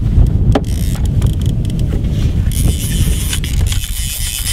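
Wind buffeting the microphone: a loud, uneven low rumble, with a few scattered light clicks.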